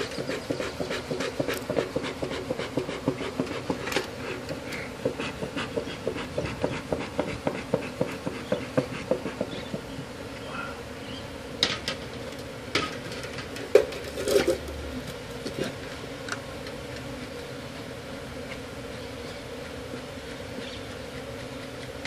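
Honey bees from a colony under a mobile home buzzing in a steady hum. Over the first ten seconds a rapid run of pulses sounds over it, and a few sharp knocks come in the middle.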